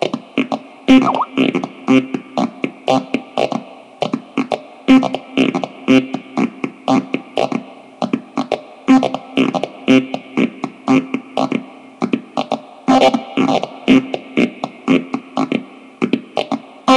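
Korg Kaossilator synthesizer playing a looped pattern of short, sharp, percussive synth hits over a pulsing tone, run through a Subdecay noise box pedal. The loop repeats about every four seconds, and its loudest hit comes at the start of each pass.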